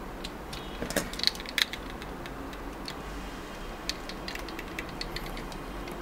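Light clicks and taps of the small plastic parts of an HBS 900 Bluetooth neckband headset being handled and fitted together, a cluster of them about a second in and a few scattered ones later.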